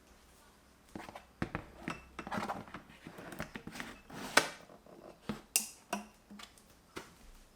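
Objects being handled: an irregular run of knocks, clicks and rustles starting about a second in, with one sharper knock in the middle.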